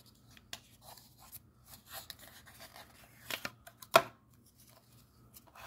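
A cardboard playing-card tuck box being opened and the deck of cards slid out and handled: light paper rustles and small clicks, with one sharp tap about four seconds in.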